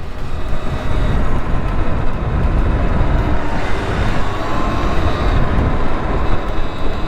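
Motorcycle riding along, its engine running steadily under heavy wind rumble on the microphone.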